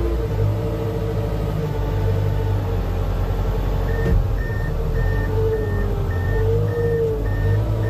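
Towbarless aircraft tractor's engine running with a steady low rumble. About four seconds in, a reversing alarm starts beeping about twice a second, signalling the tractor moving backward on pushback.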